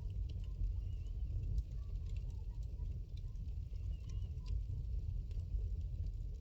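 Wood fire crackling in a fireplace: scattered sharp pops and ticks over a steady low rumble.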